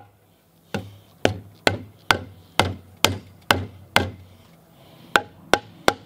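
Rubber mallet pounding a square timber post's tenon down into a chainsaw-cut mortise in a round log, to snug up the joint. About eight blows at roughly two a second, a pause about four seconds in, then three quicker blows near the end.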